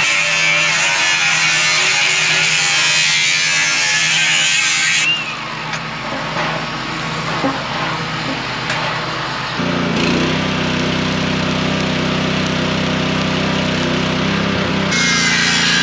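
Angle grinder cutting expanded steel mesh with a high whine, spinning down about five seconds in, followed by a few seconds of knocks from handling the metal. Then an electric arc welder buzzes steadily for about five seconds while tacking the mesh to the basket frame, and the grinder starts again near the end.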